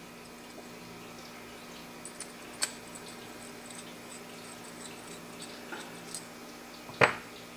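Scattered faint ticks and taps of a small hex driver and metal parts as a screw is driven into an RC car's differential case, with a sharper click about two and a half seconds in and a louder one near the end.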